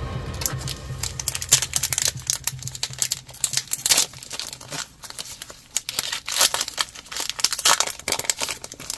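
Foil trading-card booster-pack wrapper being torn open and handled, crinkling in quick irregular crackles that come in two busy spells.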